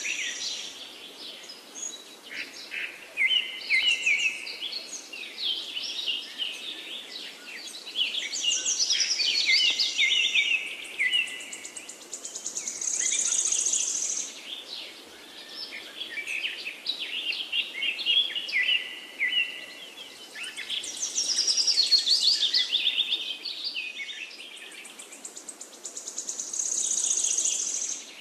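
Birds chirping and singing, with a high insect-like buzz that comes and goes. The same pattern seems to recur about every fourteen seconds, as a looped nature recording would.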